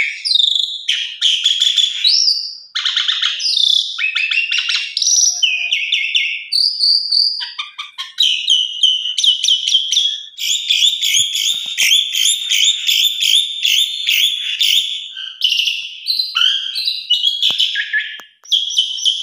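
Asian pied starling (jalak suren) singing a long, varied song of chattering, rattling and whistled phrases, with only brief pauses. A long, fast rattling run comes in the middle.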